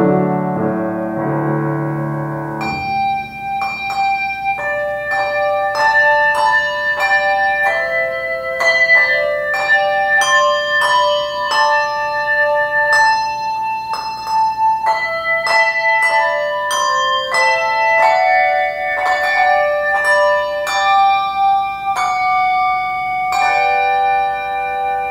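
Upright piano chords for the first few seconds, then a handbell choir playing a hymn tune: bells struck one after another in melody and chords, each note ringing on and overlapping the next.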